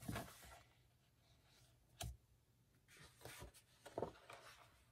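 Faint rustling of paper and craft materials being handled, in a few short scrapes, with a sharp tap or click about two seconds in.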